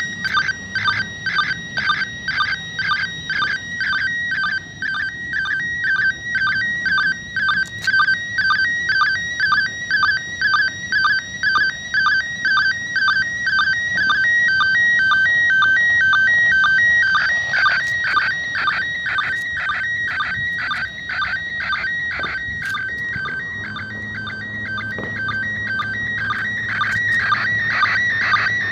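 Slow-scan television (SSTV) signal from the International Space Station, in PD120 mode, heard through an ICOM IC-2GAT handheld radio's speaker. It is a warbling, chirping tone pattern that repeats about twice a second, one pattern for each pair of image lines, as the picture is decoded.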